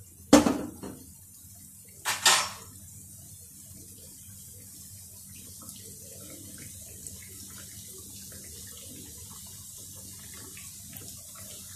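Potato sticks frying in hot oil in a steel pan, the first of two fries. There are two loud sudden sizzles about half a second and two seconds in, as more sticks drop into the oil, and then a steady crackle of frying.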